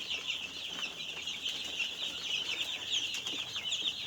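A flock of twelve-day-old chicks peeping continuously, many short high chirps overlapping into a steady chorus.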